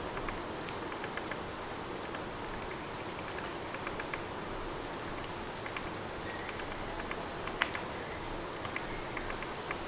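Steady rain ambience with scattered drip ticks, and short high chirps repeating every second or so over it.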